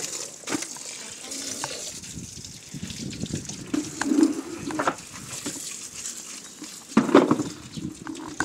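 Water running from a garden hose onto wet concrete, a steady hiss, with a few sharp knocks and clatters.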